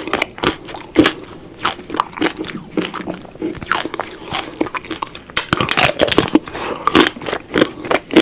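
Ice cream being eaten: repeated crunchy bites and chewing, a quick uneven run of crackling crunches.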